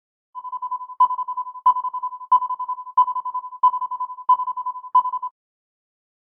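A single high electronic tone trilling rapidly, with a stronger pulse about every two-thirds of a second, seven in all, then cutting off suddenly.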